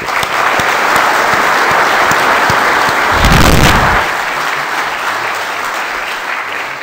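Audience applauding, starting at once and slowly fading toward the end, with a brief low rumble about three seconds in.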